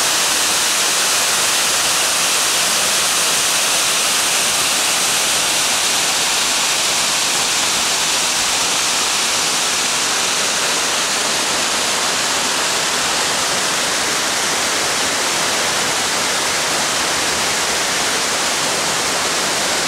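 Waterfall pouring into a pool: a steady, loud rush of falling water that doesn't change.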